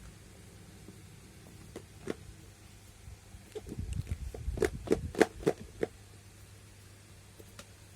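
A phone's retail box being handled and fiddled with while someone looks for how it opens: a couple of single clicks, then a quick run of taps, clicks and low thumps in the middle.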